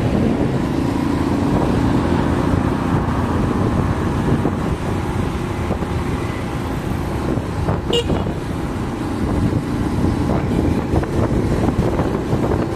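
A car driving through city traffic, with steady road and engine noise and a brief sharp sound about eight seconds in.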